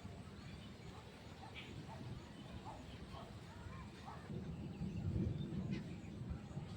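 Faint outdoor ambience: scattered short bird calls over a steady low rumble that swells about two-thirds of the way through.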